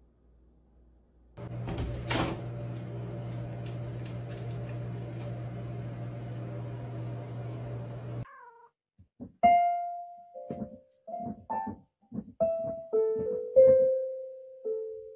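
Single notes of an electronic keyboard sounding one after another at changing pitches, about eight in all, as a cat presses the keys with its paws; they start about nine seconds in and are the loudest sound. Before them a steady hum with a knock runs and cuts off abruptly.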